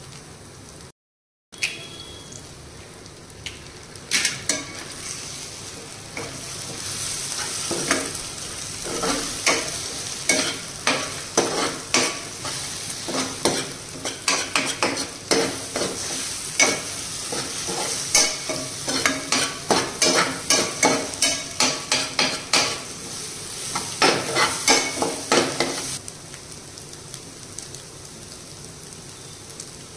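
Eggs frying with onions and curry leaves in a nonstick pan, sizzling, while a steel spatula stirs and scrambles them in quick repeated scrapes and knocks against the pan. The stirring stops a few seconds before the end, leaving a quieter steady sizzle.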